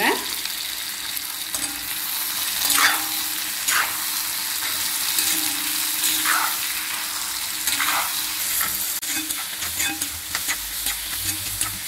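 Brinjal, shallots and green chilli sizzling in sesame oil in an iron kadai while a steel ladle stirs them, with about five sharper scrapes of the ladle against the pan over the steady hiss of frying.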